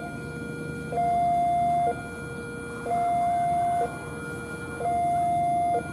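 Electronic two-tone warning alarm, a high and a low tone alternating, each held for about a second.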